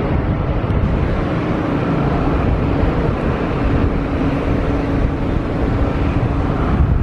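Boeing 787 Dreamliner's jet engines on final approach, a steady rushing engine noise with a faint hum running through it.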